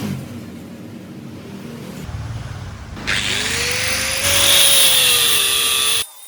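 Power tool working steel: a low rumble gives way to a loud, harsh hiss about three seconds in, growing louder with a whine that rises and falls, then stopping suddenly near the end.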